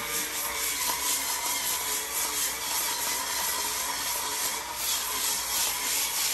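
Tilswall M1 cordless electric spin scrubber running, its rotating bristle head scrubbing a tile floor: a steady motor sound with a faint steady tone over the rub of bristles on the tiles.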